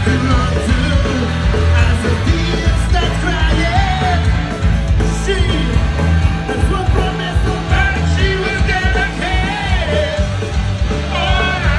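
Punk rock band playing live, with loud distorted guitars, bass and drums under a shouted, yelling vocal.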